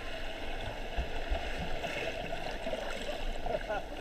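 Muffled underwater sound of pool water picked up by a submerged camera: a steady watery hiss and gurgle as swimmers move through the water, with a couple of low dull knocks about a second in and short warbling bubble sounds near the end.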